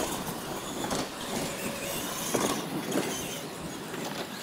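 R/C monster trucks driving hard on a dirt track: motors running and tyres churning dirt, with a few short knocks, the loudest about two seconds in.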